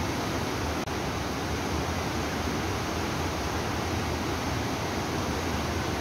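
Waterfall pouring into a flooded, churning river: a steady rush of water, with a brief dip in level just under a second in.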